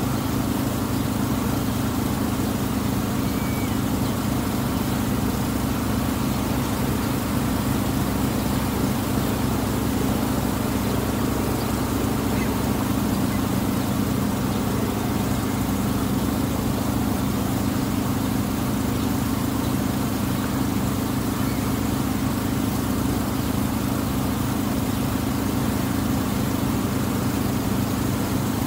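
The engine of the Tuula II, a wooden water bus, running steadily under way, heard from its deck as an even low drone.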